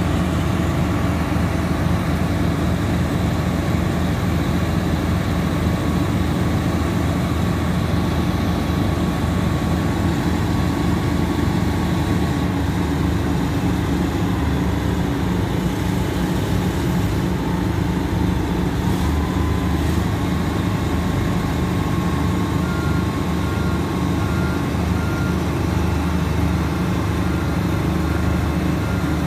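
Heavy diesel engines of the mobile cranes and truck running steadily while the cranes hoist a precast concrete beam. A repeating beep alarm starts in the last several seconds.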